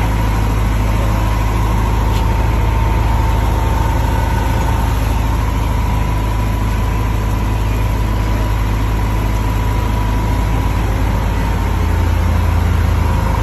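School bus engine idling close by: a steady, loud low rumble with a thin steady whine above it.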